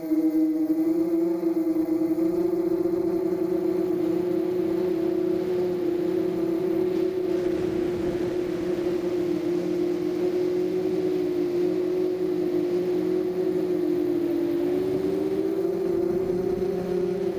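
Mini quadcopter's brushless motors and propellers, heard from the onboard camera: a steady buzzing hum whose pitch wavers with throttle. It dips just after the start and climbs a little near the end.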